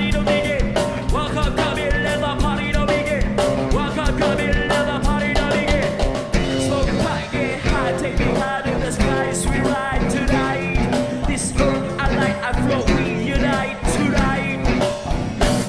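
Background music: an upbeat rock song with a steady beat.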